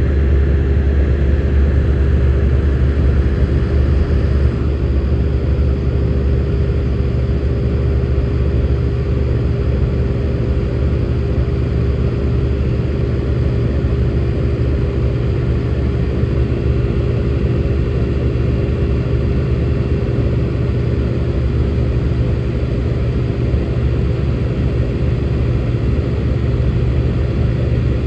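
Airtemp air-conditioning blower fan of a 1967 Chrysler Imperial running steadily: a constant whir over a low hum, dropping slightly in level about four seconds in.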